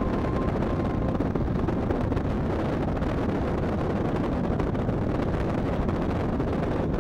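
Single-cylinder engine of a Kawasaki KLR 650 motorcycle, big-bored to 705 cc, running steadily under way, mixed with wind rushing over the microphone.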